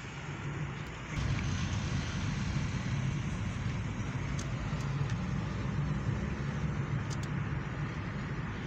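A car's engine and road noise heard from inside the cabin while it drives in traffic, a steady low hum that gets louder about a second in.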